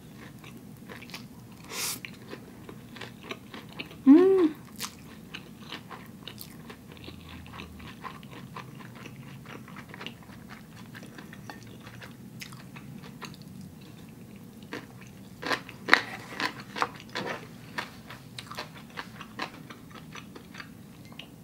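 Close-up eating sounds: spicy instant noodles slurped and chewed, with many small wet mouth clicks, a slurp about two seconds in and a denser run of chewing clicks about two-thirds of the way through. A short hum that rises and falls about four seconds in is the loudest sound.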